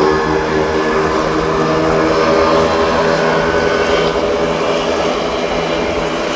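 An engine droning steadily, a hum of several even tones over a noisy background, weakening over the last couple of seconds as it passes.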